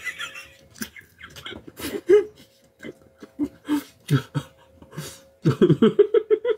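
A man's wordless vocal sounds while eating, in short bursts, with a quick run of voiced pulses near the end. Underneath is a faint steady hum.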